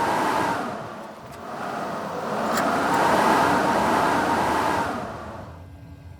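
Strong wind blowing in gusts: one gust fades about a second in, a louder one builds from about two seconds and dies away near the end.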